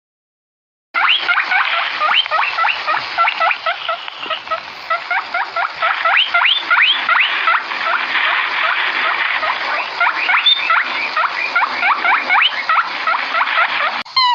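Rabbits squealing: a dense run of short, rising squeaks, many overlapping, over a steady hiss, starting about a second in. Just before the end it cuts to a different, evenly spaced series of calls.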